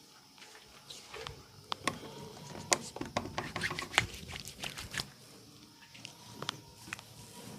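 Massage: hands slapping and tapping on skin in a quick irregular run of sharp smacks, two of them much louder, then easing off to a few soft taps.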